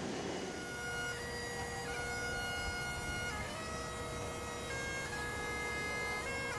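Highland bagpipes playing a tune over a steady drone, coming in about half a second in as the noise of an aircraft engine dies away.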